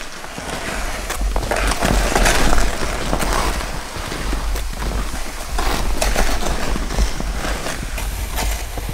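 Snowshoe footsteps crunching through deep snow while a loaded sled is dragged over it on tow ropes, the snow hissing under it. A low rumble runs underneath.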